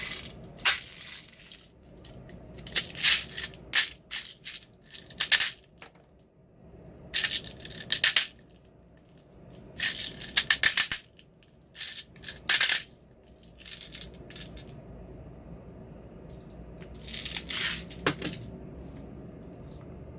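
Gas blowback airsoft Glock 19 pistol firing in short quick strings of sharp cracks, with the slide cycling on each shot and pauses of a second or more between strings.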